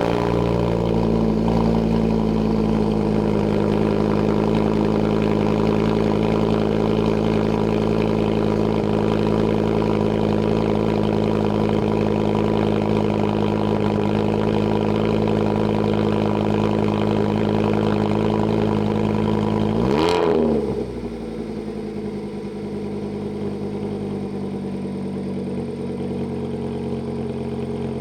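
VW Mk6 Golf 2.5 inline-five running at a steady idle just after its first start on a freshly flashed tune. About twenty seconds in, the pitch dips briefly and the engine settles to a slightly quieter idle.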